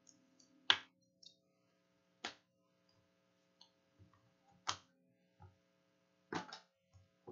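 Trading cards and a plastic card holder being handled: four sharp clicks at uneven intervals, the first the loudest, with a few faint smaller ticks between.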